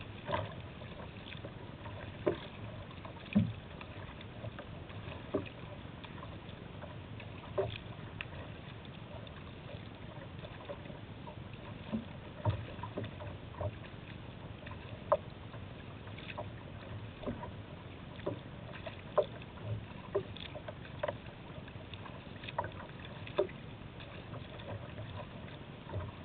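Kayak gliding through choppy river water: a steady rush of water, with short splashes and knocks every second or two.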